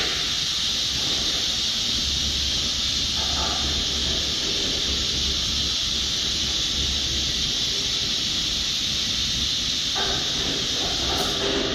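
Steady, loud hiss of rushing air from an inline magnetron sputtering glass-coating line, starting abruptly, with a low machine hum underneath for most of it.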